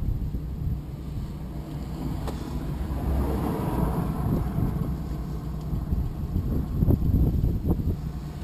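Wind buffeting the microphone: a low, gusty rumble that rises and falls unevenly.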